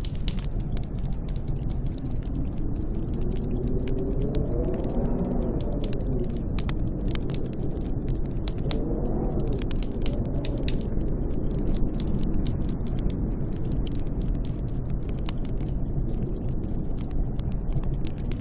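Snowstorm wind blowing with a steady low rumble, howling in two rising-and-falling gusts about four and nine seconds in, over a scatter of sharp crackling clicks.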